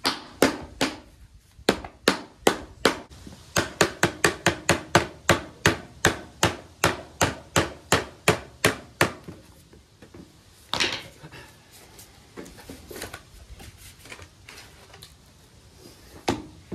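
A mallet knocking repeatedly on the base of a longhorn skull's horn, about three blows a second for some nine seconds, to loosen the horn sheath from its bony core. The blows then stop, leaving a few fainter scattered knocks and one sharper knock about eleven seconds in as the horn is worked loose by hand.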